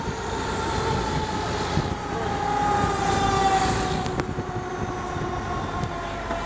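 Fire engine siren with its tone falling slowly and steadily in pitch, over the running noise of the moving truck. A few sharp clicks sound about four seconds in.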